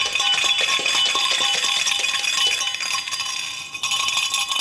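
Loud, continuous rattling and clanging as a stainless steel tumbler is shaken with a blender ball inside, the ball hitting the steel walls and the tumbler ringing. The shaking eases briefly near the end, then picks up again.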